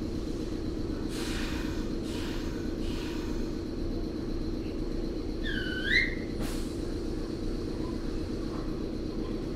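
Nagoya subway 3000-series train standing at a station, its onboard equipment humming steadily. A few soft hissy swishes come early on, and a short sweeping chirp, falling then rising, is heard about halfway through as the loudest sound.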